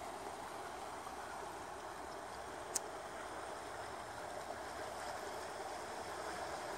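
Fast-flowing mountain river rushing steadily over its stony bed, with one sharp click nearly three seconds in.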